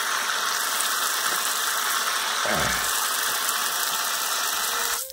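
Steady rushing road and wind noise of a car on the move, an even hiss at a constant level, with a brief voice-like sound about two and a half seconds in.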